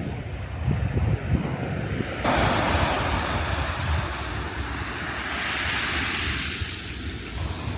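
Sea waves breaking on a sandy beach, with wind buffeting the microphone. About two seconds in, the hiss of a wave washing up sets in suddenly, swells, and fades near the end.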